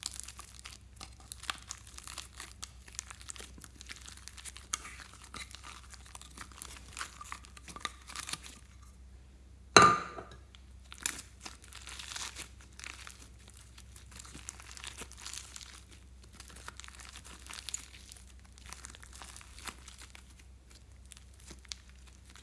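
Foam-bead slime (floam) being pressed and kneaded by hand, with a steady irregular crackling of the beads. One much louder sudden smack a little before halfway.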